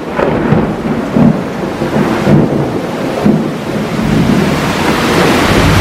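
Thunder rumbling over heavy rain, growing louder in the second half.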